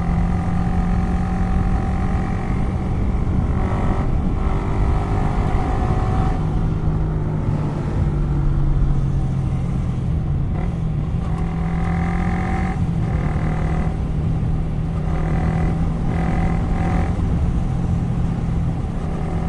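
Yamaha R15 V3's single-cylinder engine running through an aftermarket exhaust with one dB killer fitted, loud and steady while riding, its pitch shifting slightly a few times as the throttle and gears change.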